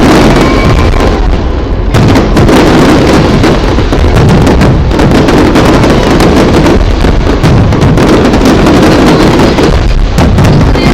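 Fireworks display at its height: a dense, unbroken barrage of shells bursting and popping many times a second over a constant low rumble, very loud.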